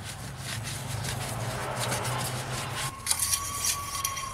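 Shop towel rubbing and wiping around the transmission dipstick tube. About three seconds in, this gives way to sharp metallic scraping and clicking as the long metal dipstick is drawn out of its tube.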